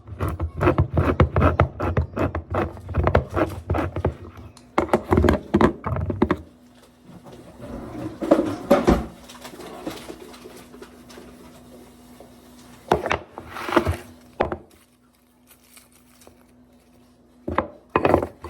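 Knocks and clatter of kitchen work, thick for the first six seconds, then a few scattered knocks, over a faint steady hum.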